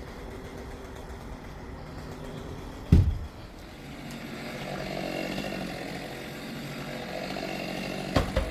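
Chainsaw running steadily while a cedar trunk is cut up, growing a little louder from about four seconds in. A heavy thud lands about three seconds in and a sharp knock near the end.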